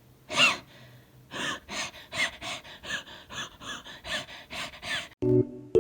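A person wheezing: two strong whistly gasps, then a fast run of short wheezy breaths, about three a second, each with a high squeaky whistle. Keyboard music comes in near the end.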